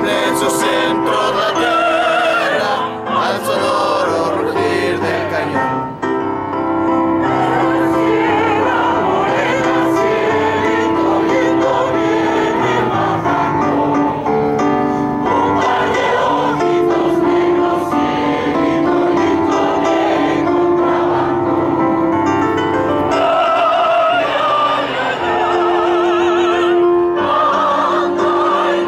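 A large choir singing in unison and harmony, with long held notes, performing live.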